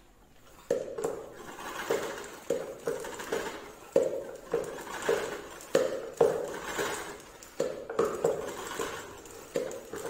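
Plastic spin mop being pumped: the handle is pushed down again and again, spinning the wringer basket with a clicking, rattling whir, about two strokes a second, starting just under a second in. The mop head is being spun dry in the bucket's spinner.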